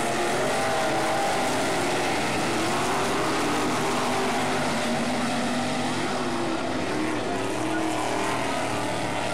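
Several winged sprint cars racing together, a dense steady engine drone whose pitches waver up and down as the drivers get on and off the throttle.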